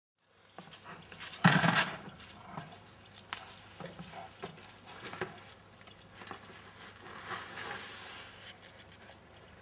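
A Landseer puppy carrying and knocking about a black plastic bucket on dirt and stones: a loud clatter about a second and a half in, then scattered knocks and scrapes of the bucket.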